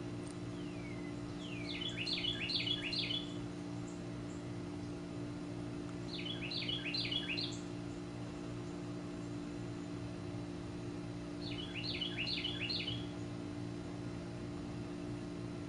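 A songbird singing three short phrases, each a quick run of four or five repeated notes, about five seconds apart, over a steady low hum.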